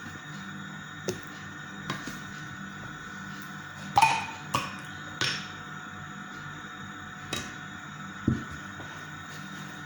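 Soft background music with steady held tones, over which kitchenware clinks and taps about seven times, the loudest cluster about four to five seconds in.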